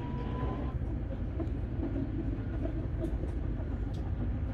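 Prague tram running along its line: a steady low rumble, with a motor whine rising in pitch that stops under a second in, and a few faint clicks.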